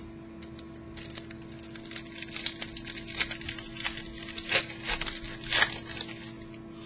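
Crackling and rustling as trading cards and their foil pack wrapper are handled, a run of irregular crinkles loudest near the end, over a steady electrical hum.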